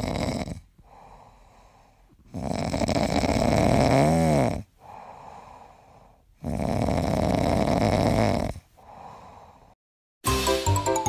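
A dog snoring in its sleep: three long snores about three seconds apart, with quieter breaths between. The middle snore carries a brief wavering tone.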